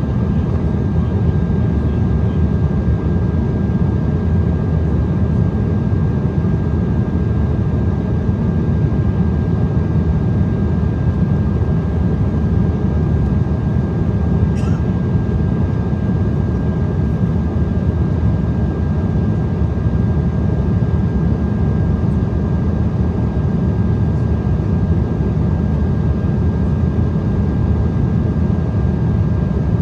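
Steady cabin noise inside an Embraer ERJ-175 airliner in flight: a low, even rush of airflow and the GE CF34-8E turbofan engines, with a thin steady whine above it.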